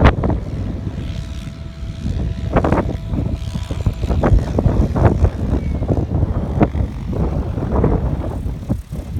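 Strong wind buffeting the microphone in irregular gusts, a heavy rumble. A faint steady tone sounds under it for a few seconds near the start.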